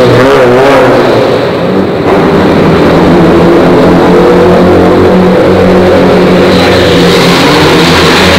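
Car engines accelerating hard in a road tunnel. First a Mitsubishi Lancer Evolution's turbocharged four-cylinder goes past close by with its note wavering up and down. After a sudden cut about two seconds in, another car's engine pulls steadily, and the sound changes again near the end.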